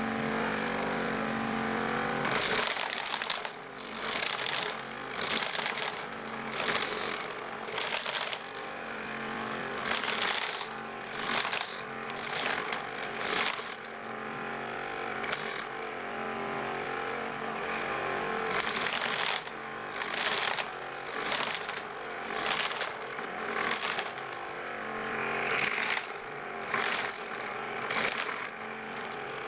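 Homemade corn sheller driven by a used Sanyo water-pump motor, running with a steady hum. From about two and a half seconds in, its rubber tire-strip beaters strip kernels off the cobs in repeated bursts of clatter.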